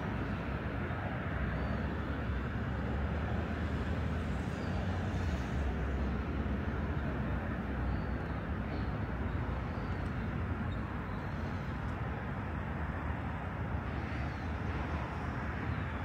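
Steady road traffic rumble from passing cars and buses, a low even hum without distinct events.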